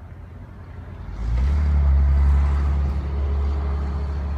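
NSW TrainLink V set electric train arriving at the station: a loud, steady low hum with a noisy rush above it, coming in sharply about a second in.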